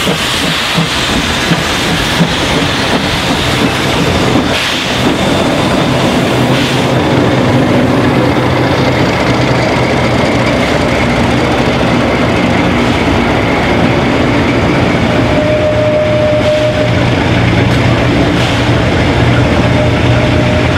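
Baldwin 2-6-2 steam locomotive No. 12 passing close at slow speed with a hiss of steam, followed by a small diesel-electric helper locomotive running steadily as it rolls by, its wheels clacking over the rail joints. A thin wheel squeal sounds briefly about three-quarters of the way through and again near the end.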